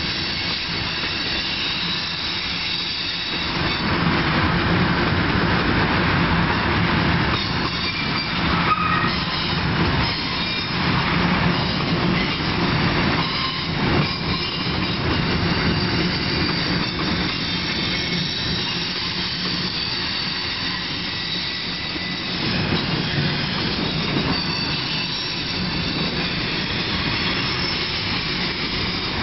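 A CN freight train's tank cars roll steadily past with a rumble and rattle of wheels on rail and thin high wheel squeals. There are a few clanks along the way.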